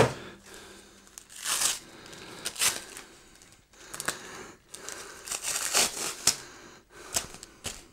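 Packaging being unwrapped by hand: a protective wrap around a speaker rustling and crinkling in irregular bursts as it is pulled off, with adhesive tape tearing loose.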